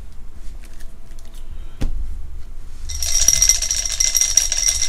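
Dice shaken in a clear drinking glass, rattling against the glass with a bright ringing clink, starting about three seconds in. A single knock comes about two seconds in.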